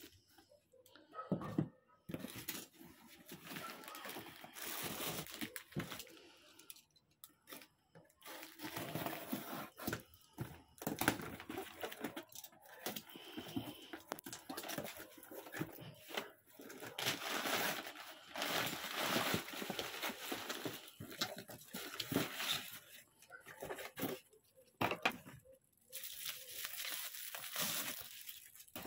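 Packaging being unpacked by hand: plastic bags and bubble wrap crinkling and a taped cardboard box being torn open, in irregular rustling bursts that grow denser in the middle.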